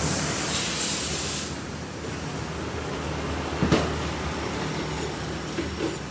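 Tire-shine spray hissing in one burst of about a second and a half, followed a little after halfway by a single sharp knock.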